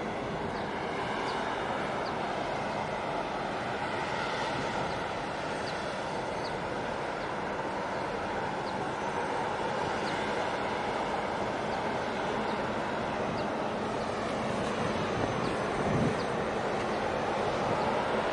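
Steady drone of a harbour boat's engine with rushing water noise, and a brief thump near the end.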